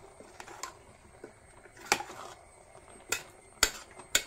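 A steel spoon stirring a thick vegetable and coconut mix in an aluminium pressure cooker, clinking sharply against the pot's side a few times, the loudest clinks in the second half.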